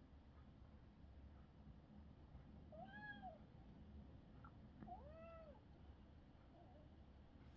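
A kitten meowing faintly: two drawn-out meows about two seconds apart, each rising then falling in pitch, with a few shorter, fainter meows around them.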